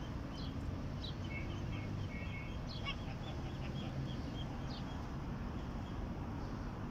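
Poultry chicks peeping: many short, high chirps, some sliding downward, that thin out after about five seconds, over steady low background noise.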